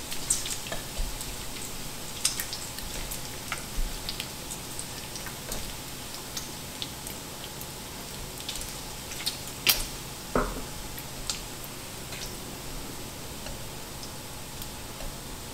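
Food sizzling and crackling on an electric griddle, with scattered clicks and taps of wooden chopsticks on the griddle plate as pieces are moved; two sharper knocks about ten seconds in.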